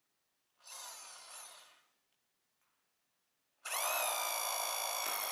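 Hammer drill boring a Tapcon pilot hole: a short run of drilling a little over a second long, then, from about three and a half seconds in, a longer, louder run with a high motor whine that dips in pitch as the bit bites.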